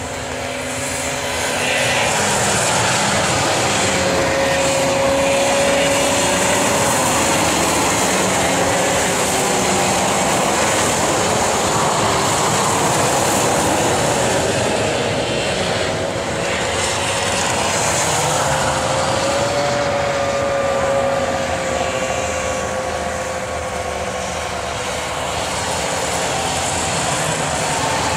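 Racing snowmobiles' two-stroke engines running at high revs, several at once, their whine rising and falling in pitch as sleds pass.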